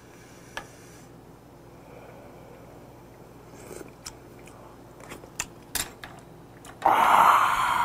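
A man eating a spoonful of fish cake: faint mouth clicks and chewing, then about a second of loud breathy air rushing through the mouth near the end.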